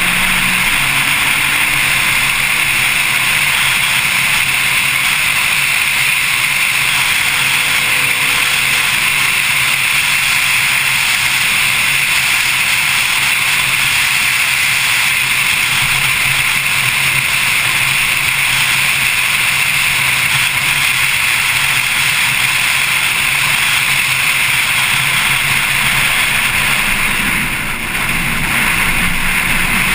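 Steady wind rush over a car-mounted camera at track speed, with the Porsche 911 Carrera S's flat-six engine running faintly underneath. The noise dips briefly near the end.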